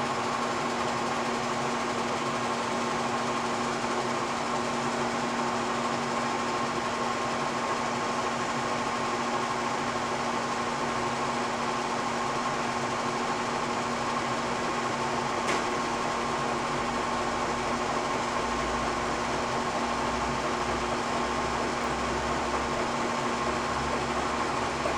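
Kearney & Trecker milling machine running steadily on power feed, cutting a wedge into an aluminum block, with a thin steady tone over the running noise. A single faint tick comes about fifteen seconds in, and a low rumble joins in the last few seconds.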